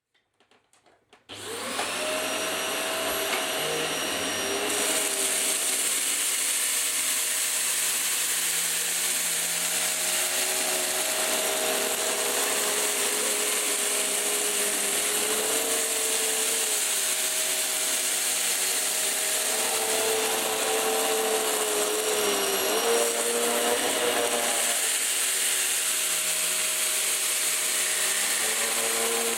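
Hoover Slalom Allergy Care+ upright bagless vacuum cleaner switched on about a second in, its motor spinning up and then running steadily with a strong rush of air. The motor's pitch wavers a little as it runs.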